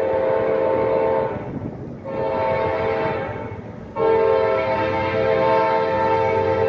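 Freight locomotive's multi-chime air horn blowing a chord of several notes, in three blasts: one that ends about a second and a half in, a shorter one of under two seconds, and a long one that starts about four seconds in, over the low rumble of the passing train.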